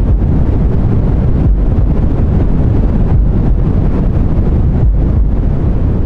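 Deep white noise: a loud, steady, even hiss with most of its weight in the bass, like a low rushing wind, with no distinct events.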